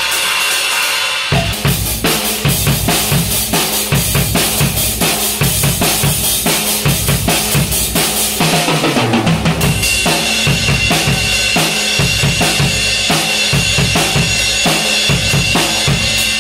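A drum solo on an acoustic drum kit: bass drum and snare strokes with cymbals. Dense, busy strokes start about a second in, with a run falling in pitch around nine seconds in.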